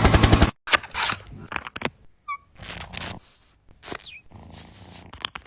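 A loud rhythmic sound cuts off about half a second in. Then come a few brief, high animal calls, one falling in pitch, among scattered rustles and knocks.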